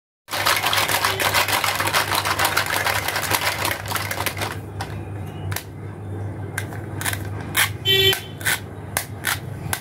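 Rapid clattering of hollow plastic toy fruits in a plastic basket as it is moved into place, for about the first four seconds. Then separate sharp clicks and taps as the plastic halves of a toy fruit are handled, with a brief squeak near the end.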